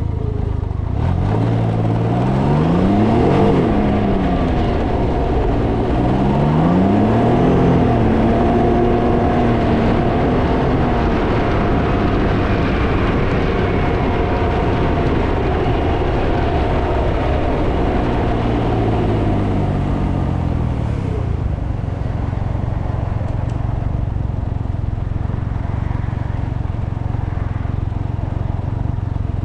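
Can-Am Ryker three-wheeler's engine under way, its revs climbing and falling twice in the first eight seconds, then holding steady at cruise, with heavy wind noise on the microphone.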